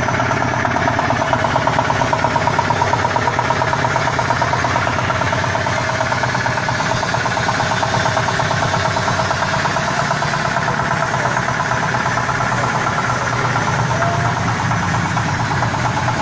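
Small single-cylinder horizontal diesel engine running steadily with a fast, even beat. It is driving a pan granulator through a belt and gearbox.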